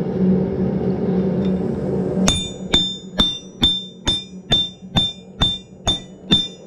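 Hand hammer striking a steel drift set in the eye of a hot mild-steel spit prong on the anvil, opening out the square hole: about ten ringing blows, a little over two a second, starting about two seconds in.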